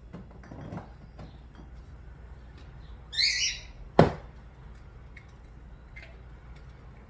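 A short shrill squeal about three seconds in, then a single sharp knock a second later, over faint low hum and small clicks.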